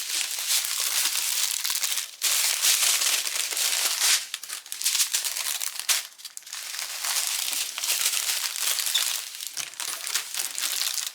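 Small plastic bags of diamond painting drills crinkling as they are handled, in an almost unbroken run of crackling with brief lulls about two, four and six seconds in.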